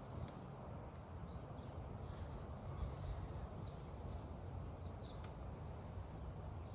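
Faint outdoor ambience: a low rumble with a few short, high bird chirps and an occasional sharp click.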